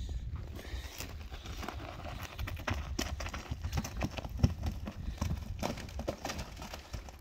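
Footsteps crunching on coarse grit over bare granite at a walking pace.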